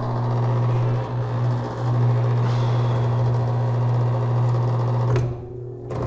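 Drain pump of an LG TurboDrum top-load washer running with a steady low electric hum. It falters briefly about a second in, then cuts out after a click near the end before starting again. The technician diagnoses a pump whose shaft is beginning to stick, so it sometimes starts and sometimes doesn't.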